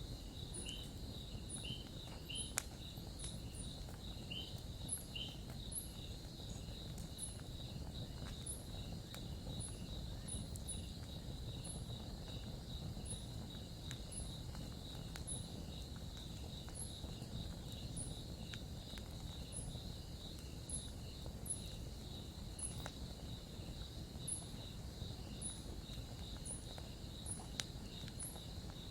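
Crickets chirping in a steady pulsing chorus, with a higher chirp repeating about once a second, over low steady noise. A campfire gives a few sharp crackles and pops.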